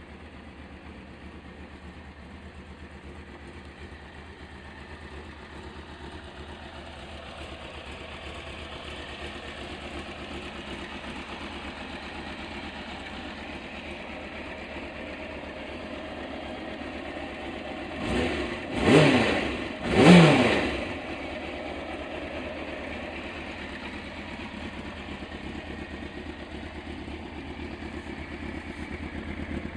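Suzuki GSX motorcycle engine idling steadily, then blipped three times in quick succession about two-thirds of the way in, each rev rising and falling, the last the loudest, before it settles back to idle.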